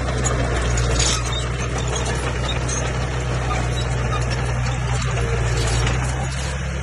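Komatsu crawler bulldozer's diesel engine running steadily, with scattered high squeaks and clicks over it.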